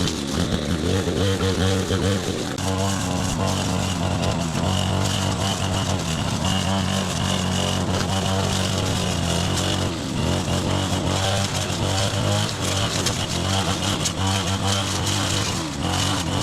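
A small engine running steadily at an even speed, with a constant low hum.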